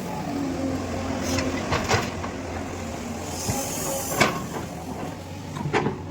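Sany 210 excavator running steadily, with sharp knocks and clanks from the machine working, several in the second second and a louder one a little after four seconds. A short hiss comes just before that louder knock.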